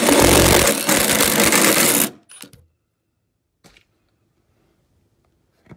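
Drill with a right-angle attachment boring a spade bit through a pine 2x4. It runs for about two seconds, then stops suddenly, and a few short knocks follow.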